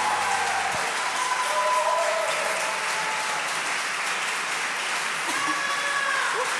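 Audience applauding steadily after a song, with a few voices heard faintly over the clapping.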